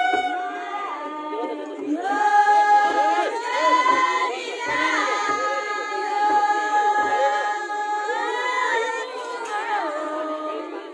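A group of women singing a traditional Kinnauri folk song together without instruments, holding long notes that bend and glide.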